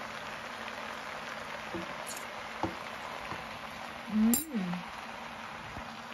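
Pancit canton noodles sizzling steadily in a hot nonstick pan, with a couple of light taps of a wooden spoon. About four seconds in, a short hum of voice that rises and falls.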